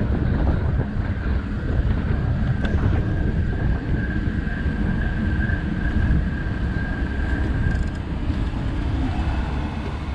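Wind noise on the microphone of a camera riding on a bicycle, over city street traffic. A thin steady high whine runs from about three seconds in until about eight seconds in.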